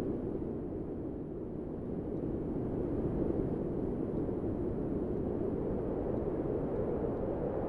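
A steady low rushing noise, like wind or a distant rumble, with no tone or beat in it, swelling a little about three seconds in.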